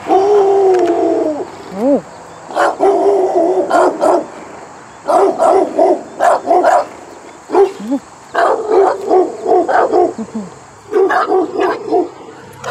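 A puppy's long falling cry at the start, then several runs of quick high barks at about four a second, with short pauses between the runs.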